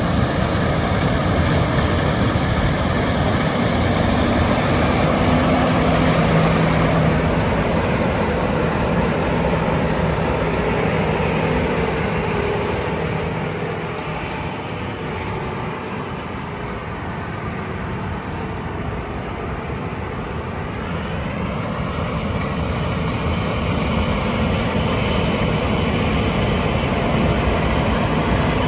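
Combine harvester running steadily in a soybean field, its engine and threshing machinery under load. The sound drops somewhat for several seconds around the middle, then builds back up.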